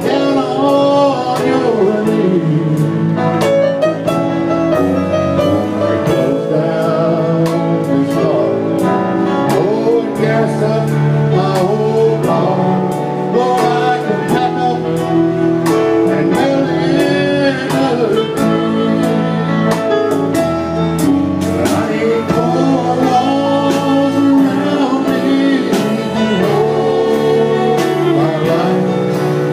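Live country band playing loudly: electric guitars, bass guitar, keyboard and a drum kit keeping a steady beat, with singing over it.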